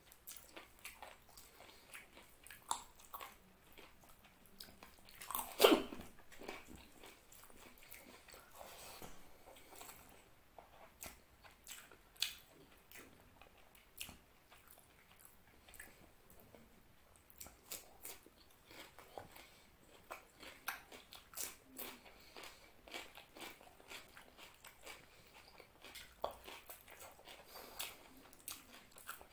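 Close-miked eating: a man chewing mouthfuls of mutton curry and rice eaten by hand, with many short wet mouth clicks and smacks. One louder smack about six seconds in.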